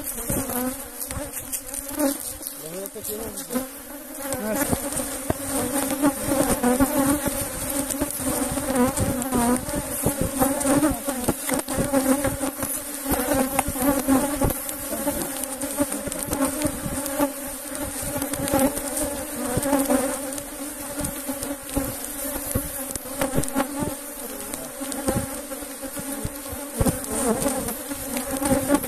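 Honeybees buzzing in large numbers around an opened hive, a dense steady drone that swells and eases, from a colony the beekeeper calls the most aggressive in the apiary. Scattered short clicks and knocks run through it.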